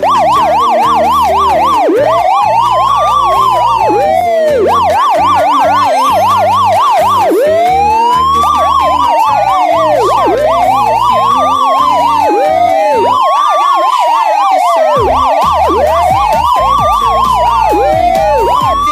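Toy emergency-vehicle car's electronic siren sounding continuously and loudly. It switches back and forth between a fast warbling yelp and slower rising-and-falling wails.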